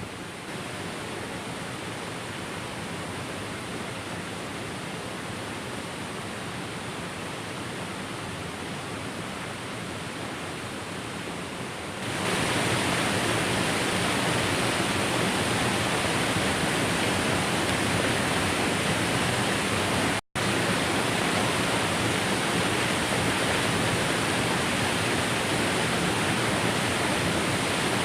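Waterfall rushing as a steady, even hiss of falling water. It gets markedly louder about twelve seconds in and cuts out for a split second around twenty seconds in.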